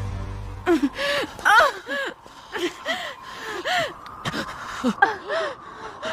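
A person's wordless voice: a string of short, breathy gasping cries, each rising and falling in pitch, one after another. A low rumble with music cuts off in the first second.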